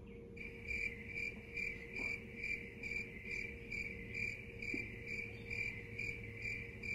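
Cricket chirping in a steady, even rhythm of about two and a half high chirps a second, which cuts off abruptly at the end. It starts and stops in step with the talk, like an added cricket sound effect.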